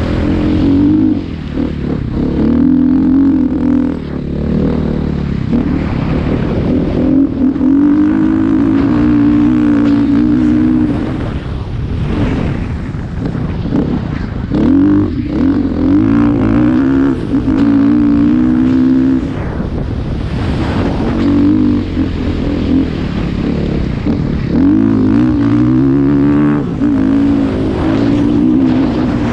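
Vehicle engine running hard with the throttle rising and falling: its pitch wavers and swells in stretches of a few seconds, with short easings between, over a steady rush of wind noise.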